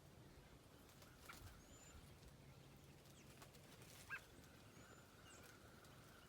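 Faint, sparse bird calls: two short chirps about a second in and about four seconds in, a few thin high whistles, and a faint held note near the end, over a low steady hum.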